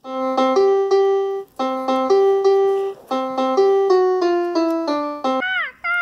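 Short piano tune: a few notes repeated in brief phrases, then a stepwise falling run of notes about four seconds in. Near the end it gives way to a quick, falling, squawk-like call.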